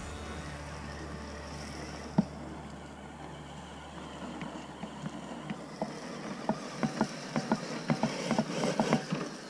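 A low steady rumble for the first few seconds. Then a run of small dry crunches and clicks that grows denser near the end, like twigs and leaf litter being crushed.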